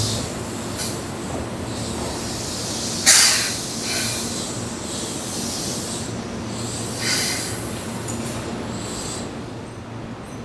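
Keihan electric commuter train at a station platform: a steady low hum with two sudden bursts of hiss, the louder about three seconds in and a smaller one about seven seconds in.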